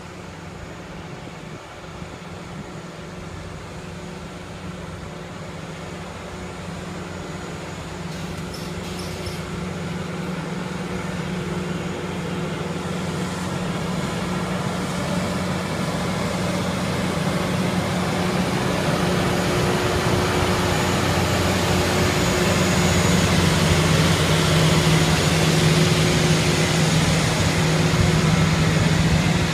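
Loram rail grinder train approaching and passing at walking pace: its diesel power units run with a steady low hum, and the grinding stones working the rail add a harsh rushing noise that builds in the second half. The whole sound grows steadily louder as the machine nears.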